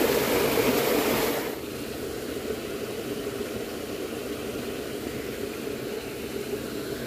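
Small stream's water running and rippling close by, loud for about the first second and a half, then dropping suddenly to a quieter steady rushing.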